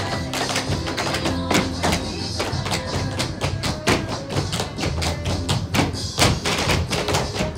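Tap shoes striking a stage floor in quick, irregular runs of sharp taps, over a recorded dance track playing through a PA speaker.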